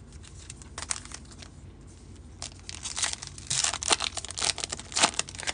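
A foil trading-card pack (2023 Topps Heritage High Number baseball) being torn open and crinkled in the hands. A few crackles come first, then a dense run of crinkling and tearing from about two and a half seconds in, loudest near the end.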